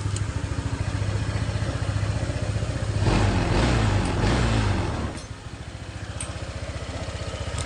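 Honda PCX 160 scooter's single-cylinder engine idling, revved up once about three seconds in and falling back to idle about two seconds later. It runs smooth, with no rattle from the CVT, whose worn roller housing has been shimmed.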